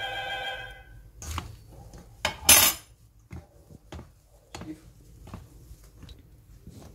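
A metal spoon rings against a stainless steel mixing bowl as fat is knocked off it into flour; the ring dies away about a second in. A few sharp clinks follow, the loudest a brief clatter about two and a half seconds in, then faint ticks and scrapes as a hand works the fat into the flour.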